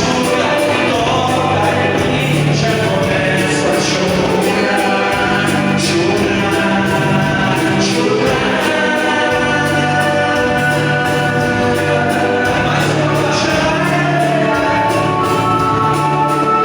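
Live dance music playing a waltz, with a sung melody over sustained chords and a bass line that changes every second or so.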